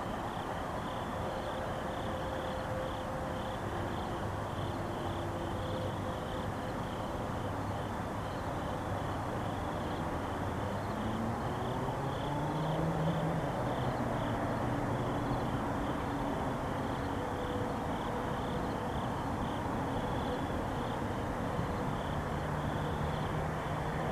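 Insects chirping in a steady pulsing rhythm over a low, steady distant rumble. About halfway through, a faint whine rises in pitch.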